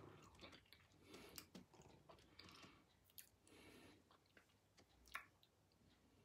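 Near silence, with faint mouth noises close to the microphone: scattered small clicks and soft smacking sounds.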